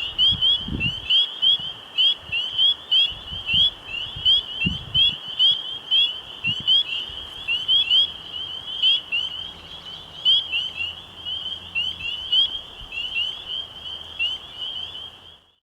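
A dense night chorus of frogs: many high, short, rising peeps overlapping without a break. A few low rumbles come in the first few seconds, and the chorus fades out at the very end.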